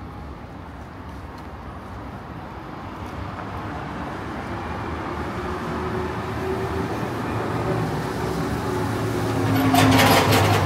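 A motor vehicle approaching in the street, its engine and road noise growing steadily louder until it is closest near the end, with a brief clatter about ten seconds in.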